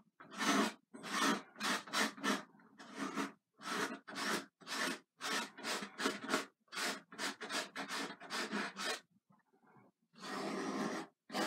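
Oil paint being scraped into a canvas, short rasping strokes two to three a second. After a short pause about nine seconds in comes one longer stroke, then a short one at the very end. The excess paint is being lifted off the surface.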